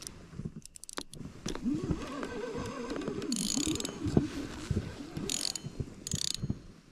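A fishing reel being cranked with a ratcheting, geared clicking as a hooked carp is played in, with a few short hissing bursts in the second half.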